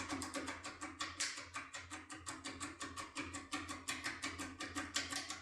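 Foil impression lock pick rattling in a lock cylinder as it is jerked back and forth: a fast, even run of clicks, about eight a second. The jerking works the tool loose in the cylinder.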